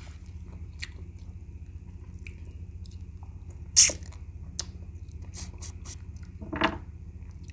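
Close-miked wet eating sounds of a person sucking and chewing gelatinous goat-foot meat off the bone, with scattered small clicks. One loud, sharp suck comes about four seconds in and another wet mouth sound near the end, over a steady low hum.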